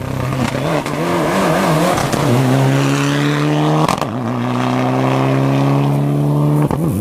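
Rally car engine at full throttle as the car accelerates. First the revs waver unsteadily for a couple of seconds, then the pitch climbs steadily in two long pulls, the first broken off at about four seconds in and the second near the end.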